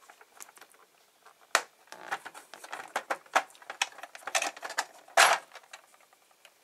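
Metal screwdriver bits and sockets rattling inside a plastic 3D-printed case as it is shaken: irregular clicks and clatters, with louder knocks about a second and a half in and again about five seconds in.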